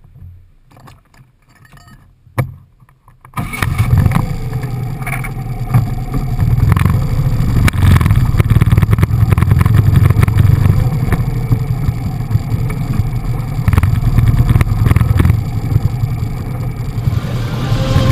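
A motor vehicle's engine running with heavy wind buffeting on the microphone, coming in suddenly and loud about three seconds in after a faint start.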